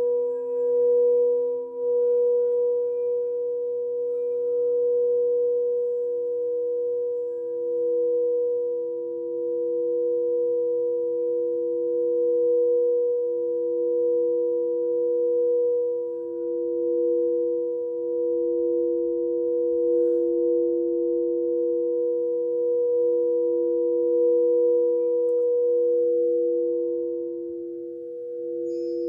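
Frosted crystal singing bowls rimmed with mallets, several pure tones sustained together with slow swells and ebbs. A lower tone fades out about a third of the way through while the others ring on.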